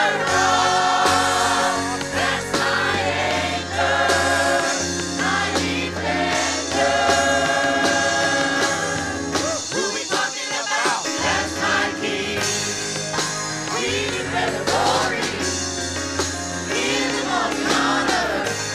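Live gospel worship song: a praise team and choir singing with band accompaniment. The low bass notes drop out briefly about ten seconds in, then return.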